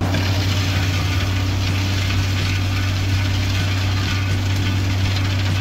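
Hydro-excavation vacuum truck running, sucking soil and water out of the hole through its rigid vacuum tube: a loud, steady rush of air over a constant low blower and engine hum.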